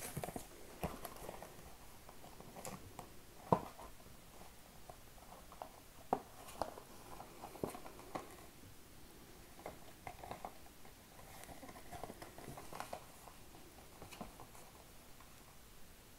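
Hands handling a cardboard product box: scattered faint taps, clicks and rustles, with one sharper knock about three and a half seconds in.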